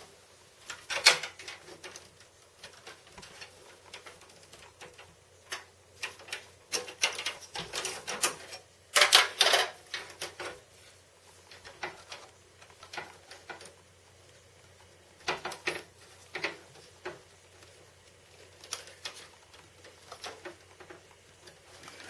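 Irregular clicks, taps and rustling as cables and plastic drive parts are handled inside a steel PC case, with louder clattering bursts about a second in and around nine seconds in.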